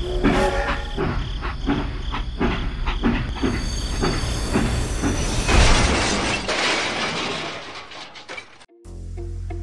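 Train running on rails, its wheels clacking about three times a second, then a loud rushing hiss that swells about five and a half seconds in and cuts off suddenly. A few steady musical tones follow near the end.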